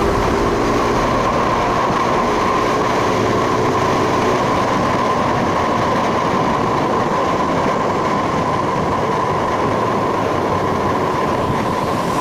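Motorcycle riding at highway speed, about 80 km/h: steady engine and wind noise with one steady tone running over it.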